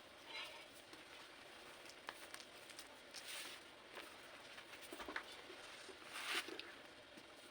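Pink cornstarch-coated blocks being crushed: soft, scattered crunches and crumbles, the loudest about six seconds in.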